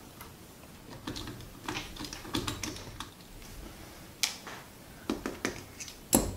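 Irregular light clicks and knocks of a transistor clock radio being dismantled by hand: the circuit board and wiring lifted out of the plastic case. The clicks come more often in the second half, with the sharpest one near the end.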